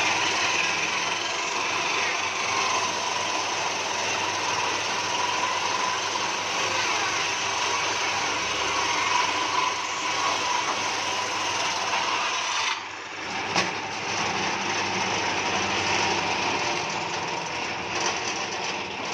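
An electric power tool running steadily and working wood, a dense rasping noise with a faint motor whine. The sound changes abruptly about two-thirds of the way through, and there is a single sharp click shortly after.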